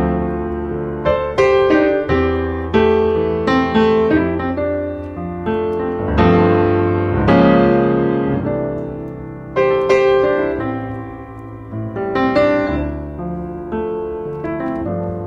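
Background piano music: notes and chords struck and left to fade, over low bass notes.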